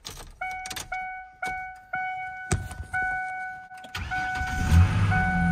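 Truck's warning chime dinging about twice a second, with a thump partway through. About four seconds in, the 2002 Ford Ranger's engine cranks briefly and catches at once, then runs steadily with the chime still going.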